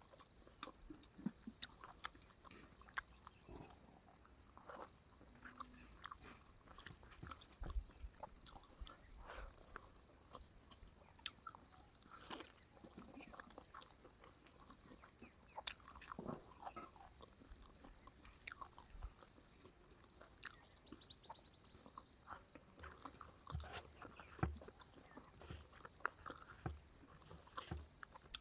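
A person eating close to the microphone: quiet chewing with scattered small clicks and mouth smacks, spread throughout.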